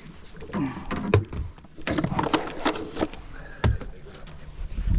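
Indistinct voices with a few sharp knocks and thumps scattered through.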